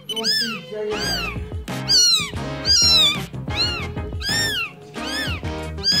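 A newborn tabby kitten mewing over and over, about eight thin high-pitched cries that each rise and then fall, coming in quick succession. Background music plays underneath.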